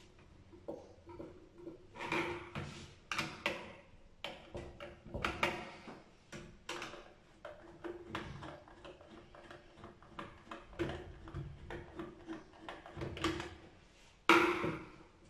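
MAADOK X1 smart door lock being handled and worked with a screwdriver on a table: scattered metal clicks and knocks, with a louder clunk near the end.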